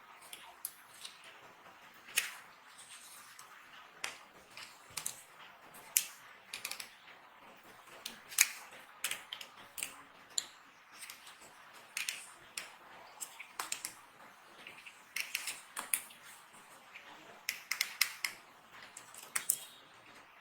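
Dry bar soap being cut: a series of crisp, sharp crunches at an irregular pace, about one or two a second.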